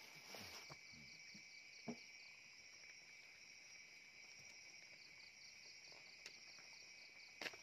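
Faint, steady chorus of insects calling, with a pulsing trill that comes and goes. Two short clicks, one about two seconds in and one near the end.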